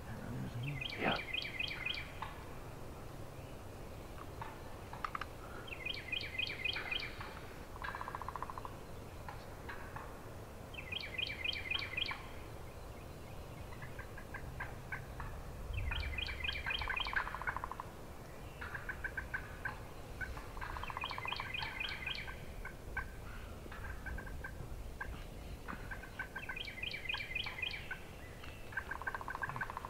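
Bird calls in woodland: a quick series of high notes, about a second long, repeated roughly every five seconds, with softer trills and short lower calls between.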